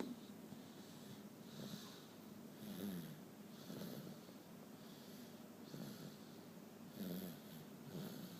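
A toddler snoring in his sleep through a stuffed-up nose: faint, rasping breaths repeating about once a second.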